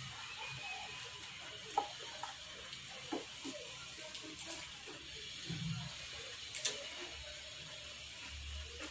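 Scattered faint clicks and crunches of people eating pani puri, cracking the crisp hollow puris and dipping them into bowls of spiced water, over a steady faint hiss.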